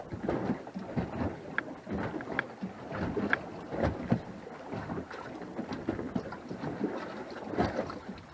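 Irregular knocks and splashing on a small boat as a fish is landed with a landing net, with wind on the microphone.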